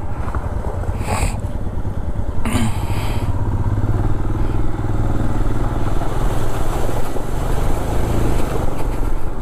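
Royal Enfield Himalayan 411 single-cylinder motorcycle engine running at low speed on a rough track, with a broad rush of wind and tyre noise. There are two short bursts of noise about one and two and a half seconds in, after which the engine grows louder.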